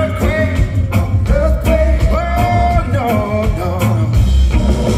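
Live reggae band playing, a man singing lead over a heavy bass line and band; he holds one long note about halfway through.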